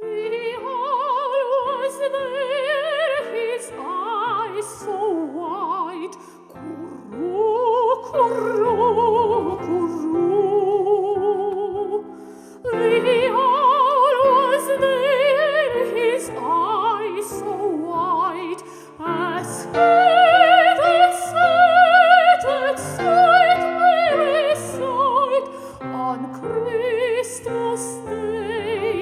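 Operatic soprano singing with a wide vibrato over piano accompaniment, in phrases separated by short breaks.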